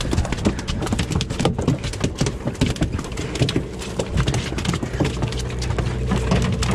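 Rapid, irregular knocking and thumping on a fishing boat, over the boat engine's steady hum.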